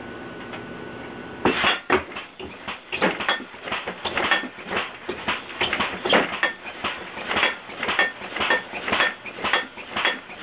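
Computer-controlled, air-compressor-powered alarm contraption going off: a rapid, irregular run of clattering clangs, about three or four strikes a second, starting about a second and a half in. Before it starts there is only a faint steady hum with a thin high tone.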